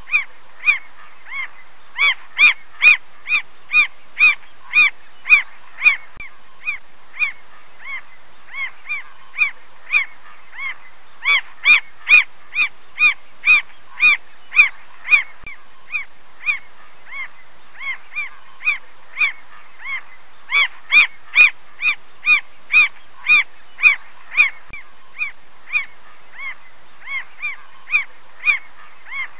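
Mockingbird calling: one short, harsh note repeated about twice a second, with louder runs of several seconds and softer notes between.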